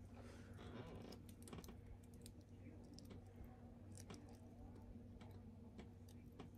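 Near silence: faint, scattered clicks and ticks of feeding tongs being worked in an acrylic enclosure, over a low steady hum.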